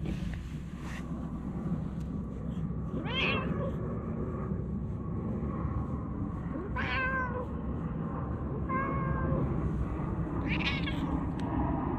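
A talkative stray cat meowing, about four separate meows a couple of seconds apart, over a steady low rumble of background noise.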